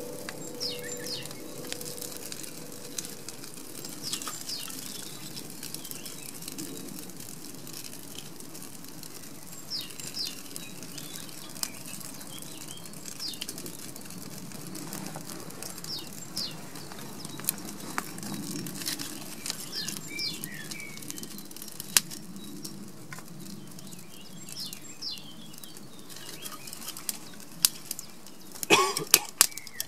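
A small wood fire crackling as split sticks are laid onto it, with scattered sharp snaps and a burst of louder cracks near the end. Birds chirp briefly every few seconds in the background.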